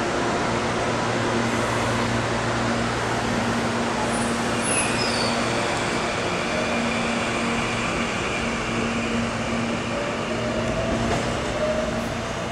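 CPTM Series 8000 CAF electric multiple unit at a station platform: a steady electric hum with a noisy rumble. A high whine falls in pitch about four to five seconds in, and another whine rises slowly near the end.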